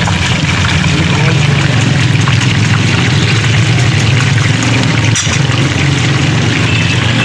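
Steady loud hiss over a constant low hum, with a single short knock about five seconds in.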